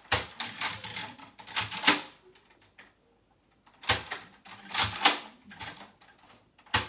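Rapid runs of plastic clicks and rattles from a Nerf blaster being handled and loaded with foam darts. They come in two bursts, the first about two seconds long and the second about a second, with one sharp click near the end.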